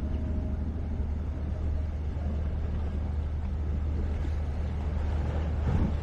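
Steady low rumble of waterfront ambience under a wash of noise, with a brief louder swell near the end.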